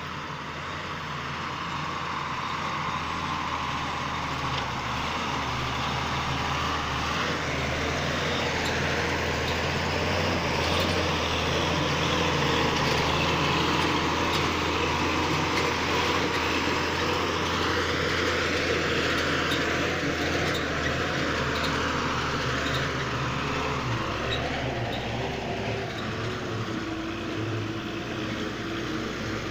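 Bus engine running as the bus drives along a rough dirt mountain track, getting louder over the first dozen seconds as it comes closer, with the engine note rising and falling in the second half.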